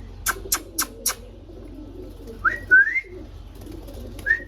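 Indian ringneck parrot calling: four sharp, high chirps in quick succession within about a second, then about two and a half seconds in a pair of short rising whistles.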